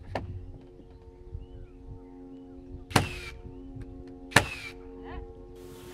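Two sharp nail shots about a second and a half apart, a framing nailer driving two nails to fix a timber beam, each with a short ringing tail, over steady background music.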